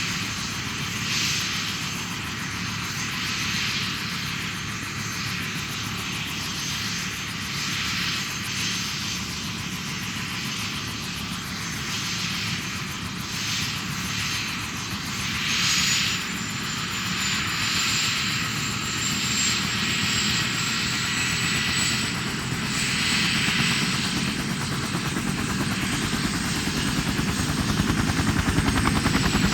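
Bell 212 helicopter's twin turboshaft engines and rotor running at ground idle with a steady high turbine whine. About halfway the whine steps up in pitch, and near the end the low rotor pulsing grows louder as the helicopter spools up toward take-off.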